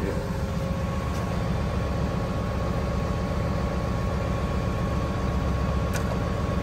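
Hino box truck's diesel engine idling steadily, heard up close from beneath the truck. There are two faint clicks, about a second in and near the end, as hands work at the liftgate pump wiring.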